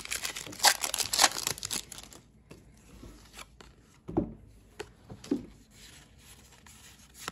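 Foil wrapper of a Pokémon trading-card booster pack crinkling and tearing open for about the first two seconds. After that come quieter, scattered soft clicks and rustles as the cards are handled.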